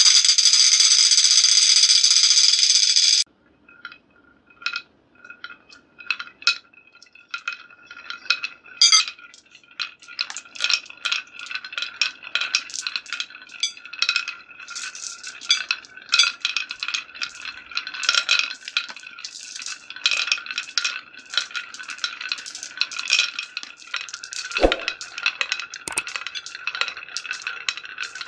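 Small balls rolling down the wavy grooves of a wooden marble-run slope, clicking against the wood and against each other. A dense, loud clatter for the first three seconds breaks off suddenly, then a few scattered clicks build into a fast, steady run of bright, ringing clicks. There is one dull thump about three-quarters of the way through.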